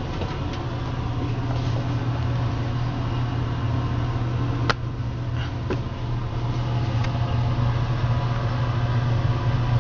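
Steady low machine hum of running lab equipment, with one sharp metallic click about halfway through and a couple of fainter clicks after it as the crucible is handled with tongs.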